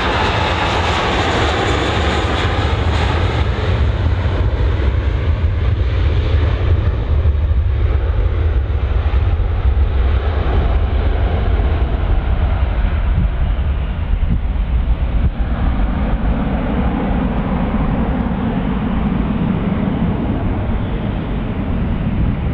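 Jet airliner's engines rumbling loudly as it passes. A higher whine fades away over the first few seconds while the deep rumble carries on.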